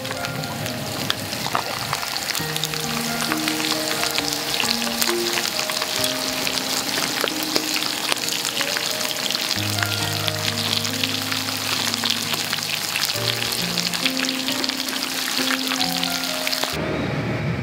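Olive oil and chopped garlic sizzling with a dense, crackling spatter in the wells of a takoyaki plate as pieces of shrimp, scallop and octopus fry in it for ajillo. The sizzle cuts off abruptly near the end.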